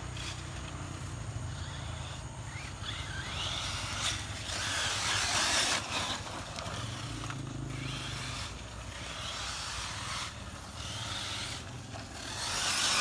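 Radio-controlled cars, among them a 1/8-scale buggy, running on a dirt track: their motors whir and their tyres hiss on the dirt, swelling and fading as they speed up and slow through the corners.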